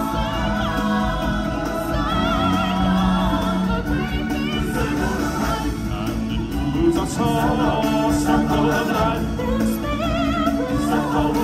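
Live stage-show song: several voices singing together over loud backing music, the sung lines wavering with vibrato.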